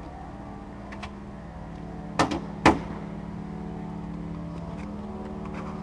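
An engine running steadily at an even pitch, with two sharp knocks about two seconds in, half a second apart.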